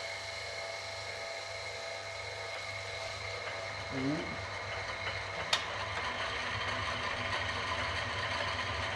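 Half-horsepower electric motor running steadily and driving an old Selig Sonnenthal lathe through its belt, a steady mechanical hum and whine. A single sharp click about five and a half seconds in.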